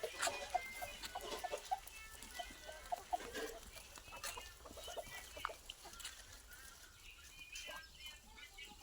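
Chickens clucking in short, scattered calls, with a burst of clucks near the end, over faint clicks and rustles.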